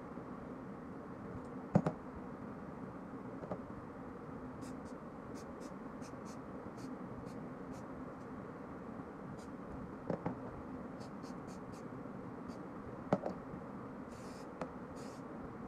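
Steel pistol parts clicking and clacking as they are handled and fitted during stripping, a few sharp clicks, some of them doubled. Near the end, two short hisses of aerosol lubricant sprayed onto the parts.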